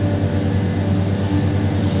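Hitachi 870 hydraulic excavator's diesel engine running at a steady, high speed under working load, a constant drone.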